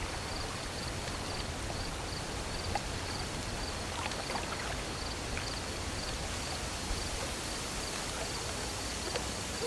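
Crickets chirping steadily, about two short high chirps a second, over a soft steady hiss of night ambience, with a few faint small knocks.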